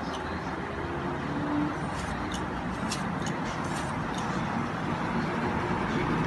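A peeled potato being sliced against the blade of a boti: a few faint, crisp cuts about two to four seconds in. A steady background rumble runs under it all and is the louder sound.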